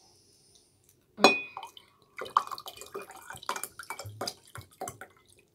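A plastic water bottle being handled: a sharp click about a second in, then a run of uneven clicks and short watery gurgles.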